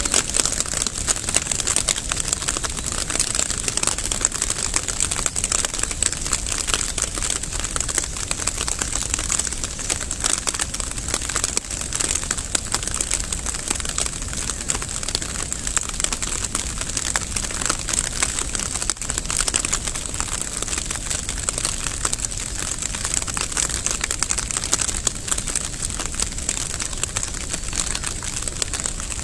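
Steady rain falling, a dense, even crackle of countless small drops with no let-up.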